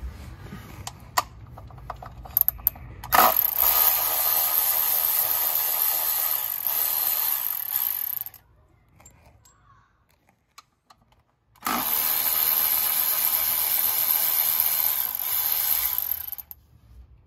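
Cordless power driver spinning Torx bolts out of an automatic transmission pan: two steady whirring runs of about five seconds each with a short pause between, after a few light clicks of the bit being set on the bolt.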